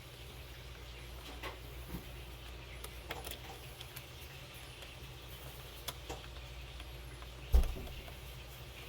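Scattered light clicks and taps of small parts and tools being handled at a workbench, with one louder knock about three-quarters of the way through, over a steady low hum.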